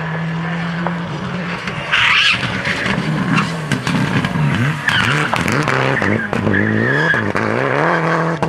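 Citroën DS3 rally car engine, its revs rising and dropping sharply again and again through gear changes and lifts of the throttle. Tyres scrabble on the loose, dusty surface about two seconds in and again about five seconds in.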